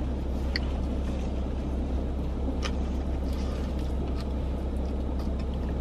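Steady low hum inside a car cabin, with a few faint clicks.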